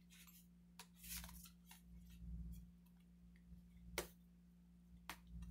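Faint handling of plastic cards and a wallet: soft rustling with several sharp little clicks scattered through, over a low steady hum.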